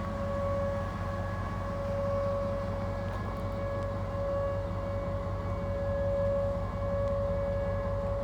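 Outdoor civil-defense siren sounding a steady tornado-warning wail on one held pitch, its level rising and falling gently, with a low steady rumble underneath.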